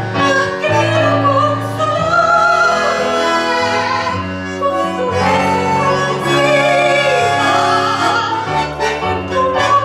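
A woman singing with vibrato into a microphone, accompanied by a bandoneon playing held chords and a moving bass line.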